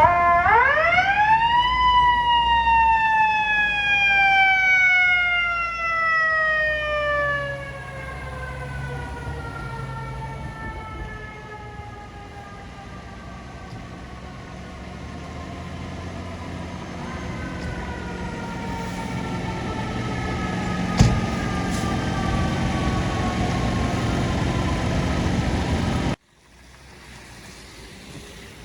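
Fire truck's mechanical siren winding up to a high wail in about two seconds, then slowly coasting down in pitch for some twenty seconds over a low engine rumble. A single sharp click comes late on, and near the end the sound cuts abruptly to quieter traffic and wind.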